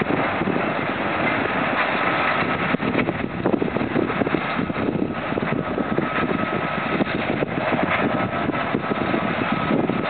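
Steady drone of two John Deere tractors at work, one pulling a McHale Fusion 2 round baler and the other a Lely two-rotor rake.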